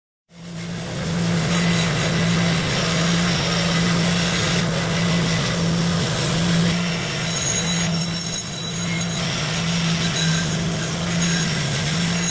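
A power tool running steadily under load, a loud even mechanical noise over a low pulsing hum, cutting in abruptly.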